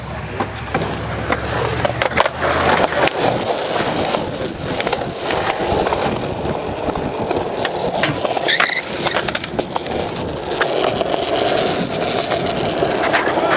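Skateboard wheels rolling over concrete: a steady rumble close to the microphone, with scattered clicks and knocks throughout.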